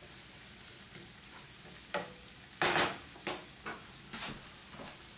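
Chopped peppers and onion frying in a pan, a steady sizzle, with a few scrapes and knocks of the wooden spoon against the pan in the middle, the loudest about two and a half seconds in.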